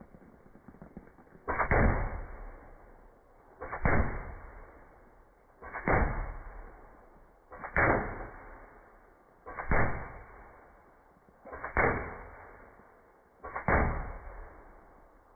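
Shots from a semi-automatic .22 M40 air rifle and the pellets striking a car door, replayed in slow motion. There are seven slowed, muffled booms about two seconds apart, each hitting suddenly and fading slowly.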